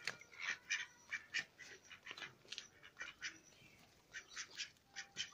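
Domestic ducks quacking: many short calls in quick, irregular succession, with a short lull a little past halfway.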